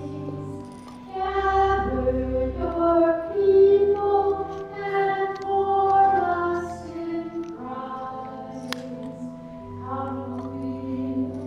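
A hymn sung by voices over long sustained accompanying chords, with the held low notes changing every second or two. A single light clink sounds about three-quarters of the way through.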